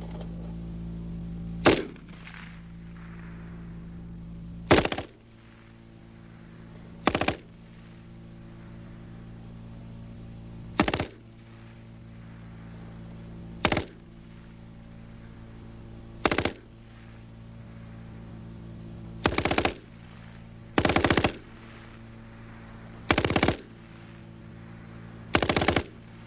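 German MG 34 machine gun (7.92 mm Mauser) firing ten short bursts, two to three seconds apart, the last four a little longer than the first ones. A steady low hum runs underneath.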